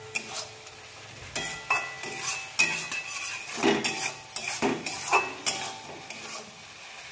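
Metal spatula scraping and knocking against a kadai, some strokes ringing briefly, as an onion and spice masala is stirred and fried, under a light sizzle.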